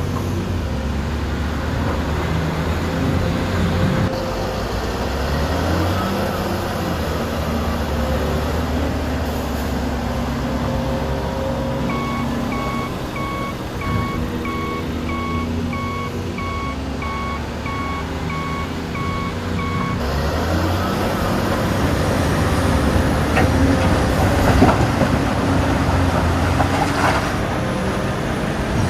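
Dubbed-in sound of heavy diesel construction machinery running steadily, with a reversing alarm beeping at an even pace for about eight seconds in the middle and a few clanks near the end.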